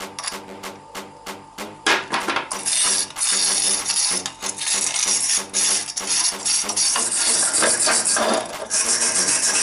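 Rusty sheet-metal parts of an old hurricane-style oil lamp scraping and grating against each other as they are twisted and worked apart by hand. A few light metallic clicks come first, and the continuous scraping starts about two seconds in.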